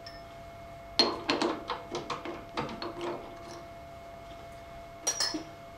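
Small metal tools and drill bits clinking and clattering as they are picked through and handled: a quick run of sharp clicks about a second in, then a few more near the end.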